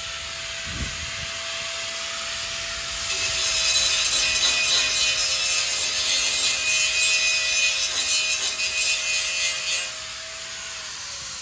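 Grinder running with a steady motor whine, its disc grinding corroded steel loudly from about three seconds in until near the end. The motor then winds down as it is switched off.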